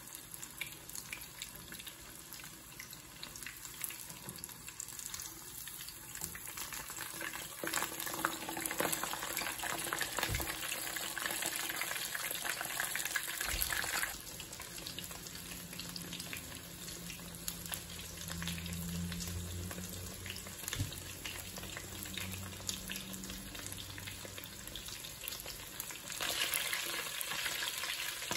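Breaded pork cutlet shallow-frying in hot oil in a skillet: a steady sizzle full of small crackling pops. The sizzle gets louder about a quarter of the way in, drops back about halfway, and gets louder again near the end.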